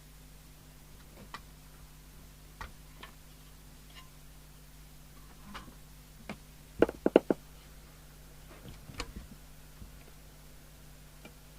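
Scattered clicks and light knocks from the cover of an Amstrad CB901 CB radio being taken off, with a quick run of four sharp clacks about seven seconds in, the loudest, and a few more a couple of seconds later.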